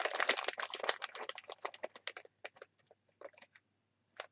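Packaging crinkling and crackling as it is handled: a dense run of irregular crackles, thinning out after about two seconds.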